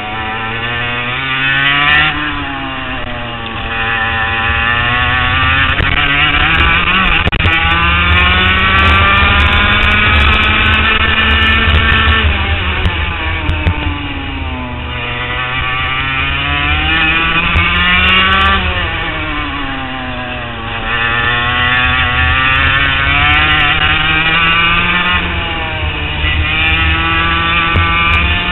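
Onboard sound of an HPV 100 kart's two-stroke engine lapping a wet track, its pitch climbing on full throttle and dropping off into the corners several times over.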